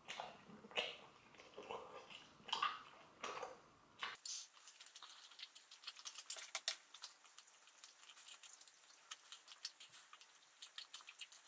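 A person chewing a large mouthful of chewing gum: faint, wet, squishy clicks and smacks at an irregular pace.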